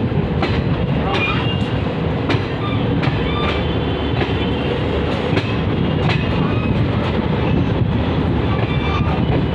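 Janshatabdi Express passenger train running past: a steady heavy rumble of coaches with many sharp clacks of wheels over rail joints and a few short, faint squeaks.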